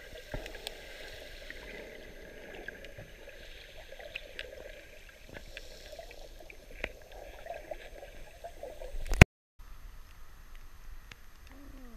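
Muffled underwater sound from a camera in a waterproof housing in shallow seawater: a low hiss with scattered faint clicks and crackles. About nine seconds in, a short loud rushing burst builds and cuts off into a moment of dead silence, followed by quieter water sound at the surface.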